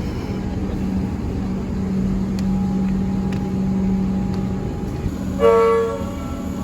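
Train running with a steady low rumble and hum, then one short blast of a train horn near the end.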